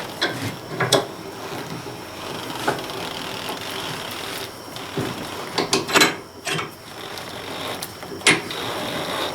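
Irregular knocks, clicks and scrapes of metal tire irons working a small tractor tire off its rim by hand.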